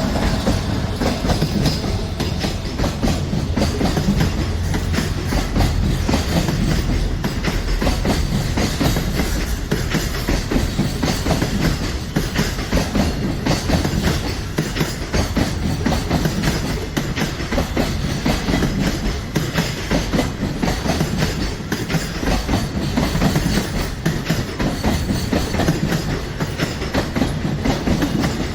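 Long freight train's wagons rolling past close by: an unbroken rapid clatter of steel wheels over the rail joints.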